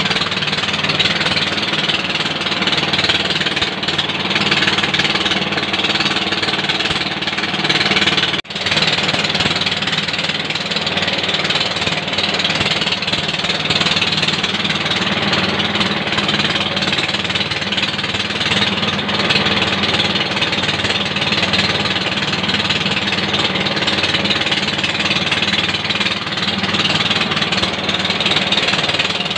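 Yanmar 7 HP single-cylinder diesel engine running steadily under load, belt-driving a rice mill that is milling palay, with the dense rattling grind of the mill over the engine's beat. The sound breaks off for an instant once, about a third of the way through.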